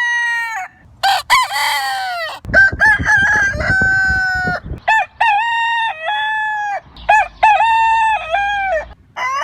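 Roosters crowing one after another, about five long cock-a-doodle-doo crows with short gaps between them.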